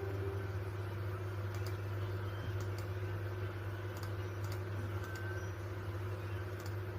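Scattered clicks of typing on a computer keyboard, over a steady low hum.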